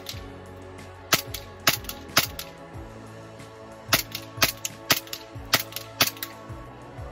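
Glock 19X 9mm pistol firing single shots: three about half a second apart, then after a pause of nearly two seconds five more at the same pace.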